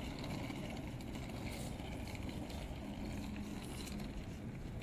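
Outdoor city street ambience: a steady low rumble of traffic, with a brief low hum a little past the middle.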